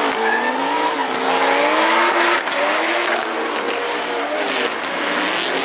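Drift cars sliding in tandem, their engines revving up and down with rising and falling pitch while their tyres squeal under wheelspin.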